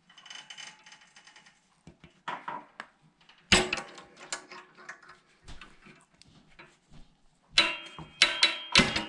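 Metal clinks and rattles from a steel coil spring and its pulling wire against the mower's chute bracket as the spring is stretched and hooked on. A sharp clink about three and a half seconds in, and a cluster of clinks near the end, each ringing briefly.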